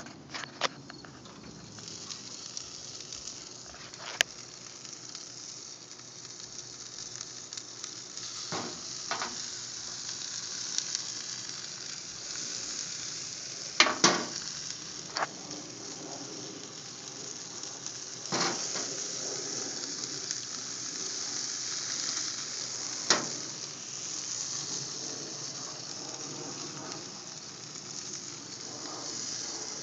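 Split chicken breasts sizzling on grill grates: a steady high hiss with a handful of sharp pops or clicks scattered through, the loudest near the middle.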